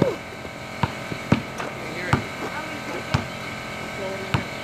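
A series of sharp knocks at uneven intervals, about seven in four and a half seconds, over a steady background hum.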